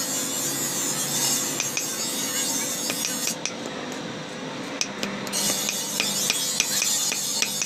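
Hand hammer striking red-hot steel held in tongs on a small steel block anvil, forging a tiny knife blank: a run of irregular, sharp metallic strikes.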